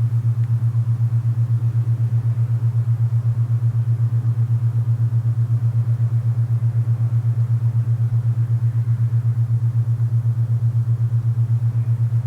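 Low, steady alpha binaural-beat tone pulsing rapidly and evenly, over a soft hiss of wind.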